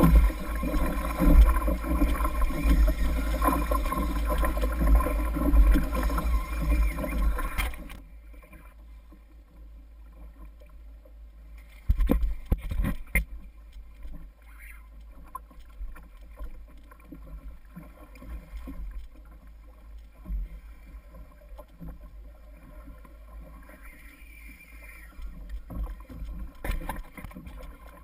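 Water rushing and splashing against a fishing kayak's hull as a hooked tarpon tows it, with wind rumbling on the microphone. The noise is loud for about eight seconds, then drops abruptly to a quieter wash, with a few sharp knocks around twelve to thirteen seconds in.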